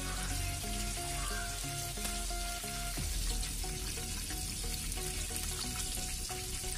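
Coated chicken pieces deep-frying in a pot of hot oil, a steady sizzle, under background music with a melody of held notes.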